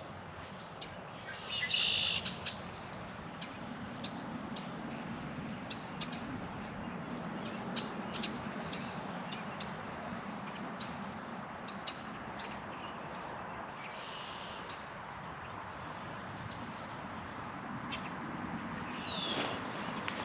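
Wild birds chirping and calling a few times, one call sliding down in pitch near the end, over a steady outdoor background hiss with scattered light clicks.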